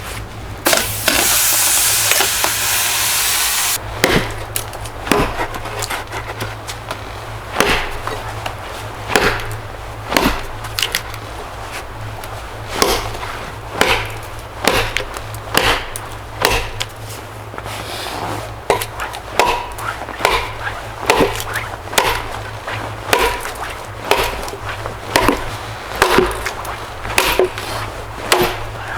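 Wood being chopped: a steady run of sharp chopping strikes, about one a second. Near the start, a loud hissing rush lasts about three seconds before the strikes begin.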